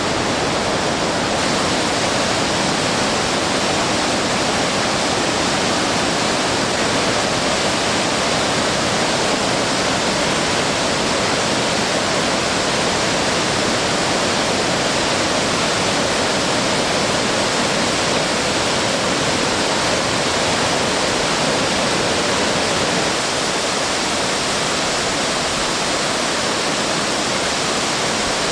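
Waterfall: a steady, dense rush of falling water, slightly quieter about 23 seconds in.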